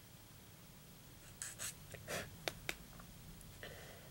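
Faint handling of small plastic model-kit parts: a few soft rustles, then two sharp clicks about two and a half seconds in, with a couple of light ticks after.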